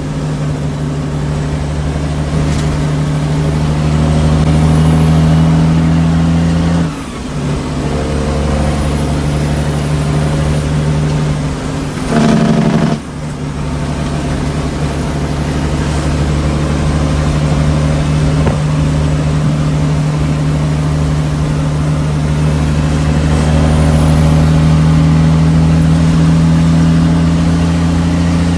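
International truck's diesel engine heard from inside the cab, pulling steadily under load. The engine note breaks briefly about 7 seconds in and again about 12 to 13 seconds in as the driver shifts the 18-speed manual gearbox, then runs on steadily, slowly growing louder.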